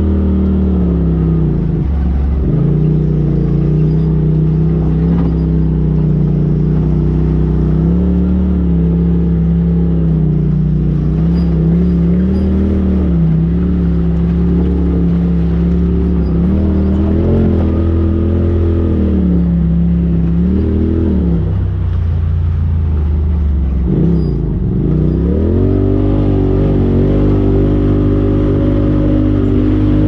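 Polaris RZR Turbo side-by-side's engine pulling up a dirt trail, heard from the driver's seat, its revs rising and falling with the throttle. The revs dip briefly about two seconds in and again around 21 and 24 seconds in, then hold higher near the end.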